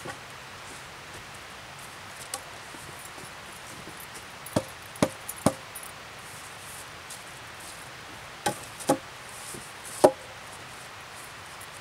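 Sharp wooden knocks of log striking log as a log is set into a stacked-log fire wall: three about half a second apart, then two more, then a final, loudest knock.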